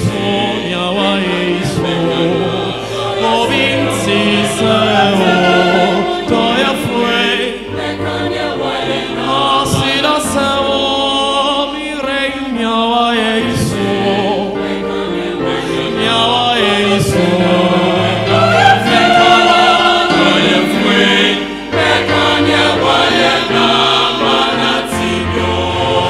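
A mixed choir of men's and women's voices singing a Ghanaian choral anthem in several parts.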